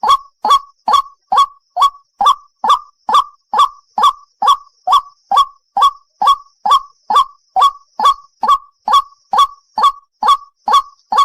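A single white-breasted waterhen calling, repeating a short, loud 'ruak' note at a steady rhythm of a bit over two notes a second.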